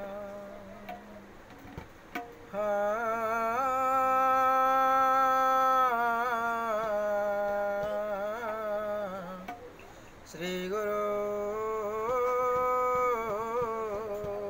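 A man's wordless devotional vocalising, the opening of an Odia bhajan: long held notes with wavering ornamental turns, one phrase starting about two and a half seconds in and a second about ten and a half seconds in.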